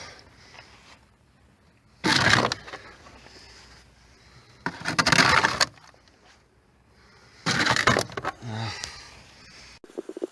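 Snow shovel scraping and clearing heavy snow off a narrowboat, three strokes a couple of seconds apart.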